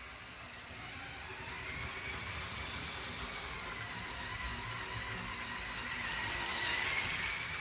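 LEGO train running along plastic track: a thin electric motor whine with the rush of wheels, slowly growing louder and peaking about six to seven seconds in.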